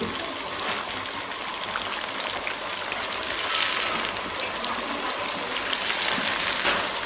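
Potato finger chips deep-frying in hot oil in a karahi: a steady sizzle and crackle of bubbling oil, stirred with a wire skimmer. It grows louder about halfway through and again near the end.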